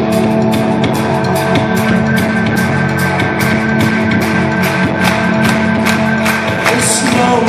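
Rock band playing live: an instrumental passage with sustained guitar and keyboard tones over a steady beat of sharp drum hits, a little over two a second, with no vocals.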